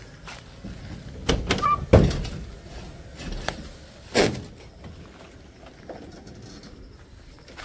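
Van door clunks: a cluster of knocks about a second and a half in, the loudest a door shutting at two seconds, with a brief squeak among them and one more knock about four seconds in.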